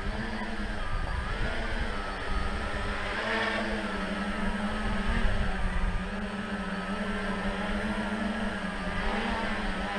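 Tricopter's three brushless motors and propellers buzzing steadily as it hovers low, the pitch wavering slightly up and down.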